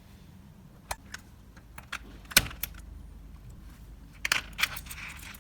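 Small sharp metallic clicks and clinks as rusty spring bars are worked out of a wristwatch's lugs to free the bracelet. The loudest click comes a little before halfway, with a quick cluster of clicks near the end.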